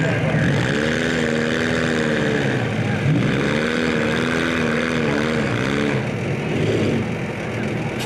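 A car engine revving up and easing back down twice, each rise and fall lasting about two seconds, over the steady running of other engines.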